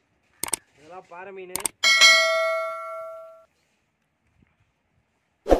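YouTube subscribe-button animation sound effect: two mouse clicks, then a bell ding that rings and fades over about a second and a half. A sharp knock near the end.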